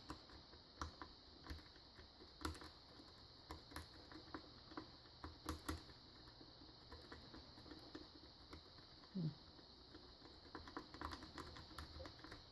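Faint, irregular metallic clicking of a triple-peak rake rocked in and out of a pin tumbler padlock's keyway, the pick knocking the pins while a tension wrench holds the plug.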